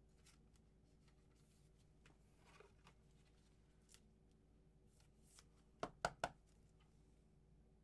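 Quiet handling of trading cards and their packaging: a few faint taps and rustles, then three sharp clicks in quick succession about six seconds in.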